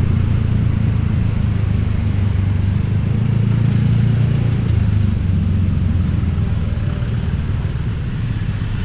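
Steady low rumble of motor-vehicle noise, unbroken throughout.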